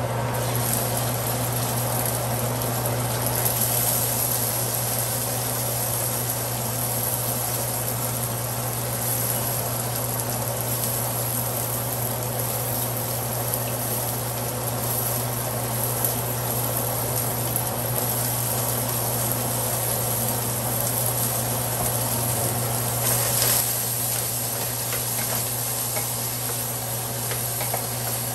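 Steady sizzling of food sautéing in a stainless steel pot on an electric stove, over a constant low hum. A few light clicks come near the end as a wooden spoon begins stirring the pot.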